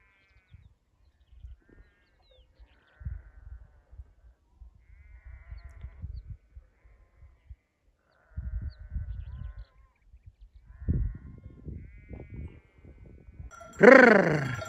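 Sheep bleating faintly and repeatedly in the distance over low gusty rumbling on the microphone. Near the end one sheep bleats loudly close by, its call falling in pitch, and bells on the flock ring steadily.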